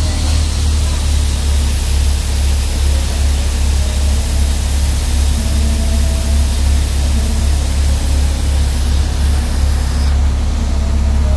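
Scania P410 XT truck's diesel engine idling steadily, with a steady hiss over it that thins out near the end.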